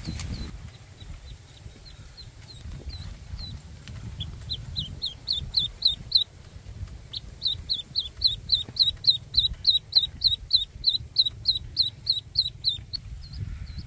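Duckling peeping: short, high, falling peeps about four a second, in a short run starting about four seconds in and a longer run from about seven seconds in, over a low rumble.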